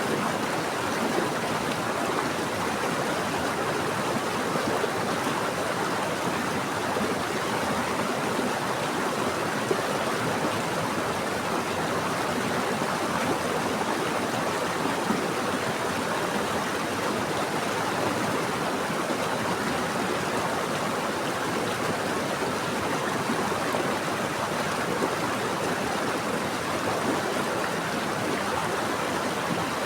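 Stream water flowing and splashing steadily, an even rushing sound without breaks.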